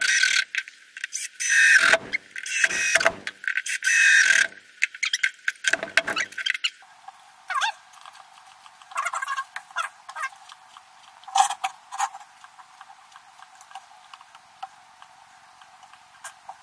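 Cordless drill-driver running in several short whining bursts on a screw in a wooden board. After that come scattered clicks and short squeaks as the pump wedge's hose and hand pump bulb are handled and squeezed.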